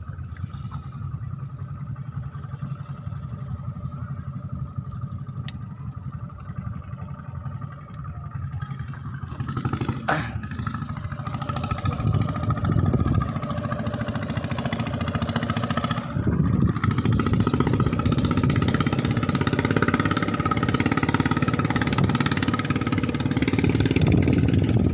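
A motor engine running steadily, growing louder about ten seconds in and again about six seconds later.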